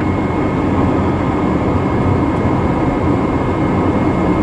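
Steady cockpit noise of a Hawker 850XP twin-turbofan business jet on approach: the rush of air past the airframe and the hum of the engines, with a thin steady high whine over it.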